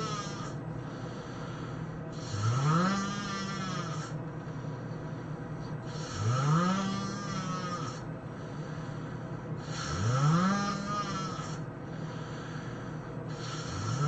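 A man snoring in deep sleep, four snores about four seconds apart. Each is a drawn-in snore that rises in pitch and then levels off, with a breathy hiss over it.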